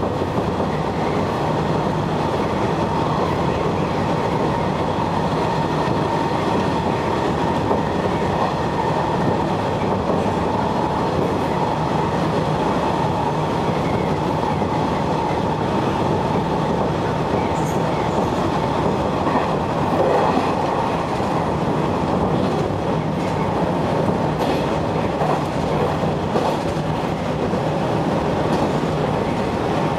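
Sanyo Electric Railway electric train running at speed, heard from inside the car. The wheels rumble steadily on the rails under a steady hum, with scattered sharp clicks from the track that come more often after the middle.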